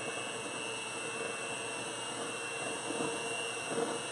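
Electric hand mixer running at a steady whir, its beaters whisking runny wet cake batter in a stainless steel bowl.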